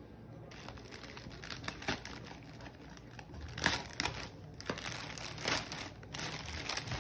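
Clear plastic wrapping crinkling and rustling as hands grip and pull it open, in irregular bursts that start about half a second in, with sharper crackles in the second half.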